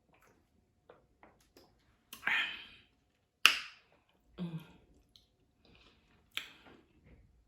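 Close-miked mouth sounds of eating: soft chewing clicks with a few louder wet smacks, the sharpest about three and a half seconds in.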